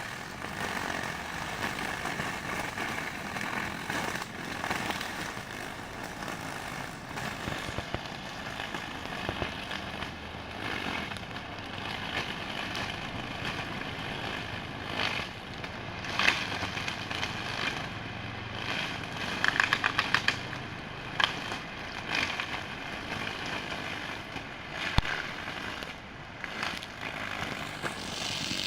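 Homemade grass cutter driven by an old washing machine motor, running steadily with a whine, irregular crackling and a few sharp clicks.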